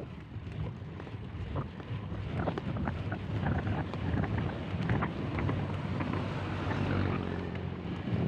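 Wind buffeting the microphone while riding a mountain bike downhill, with scattered clicks and rattles from the bike. It grows louder as the bike picks up speed.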